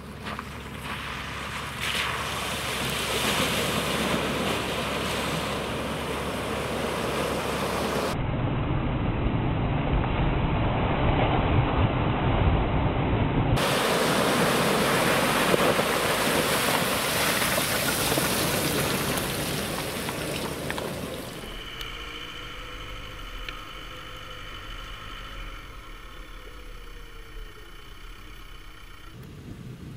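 Jeep Wrangler JK driving through a muddy pond: engine running under a heavy wash of splashing water and wind noise. About three-quarters of the way through it gives way to a quieter, steady whine made of several held tones.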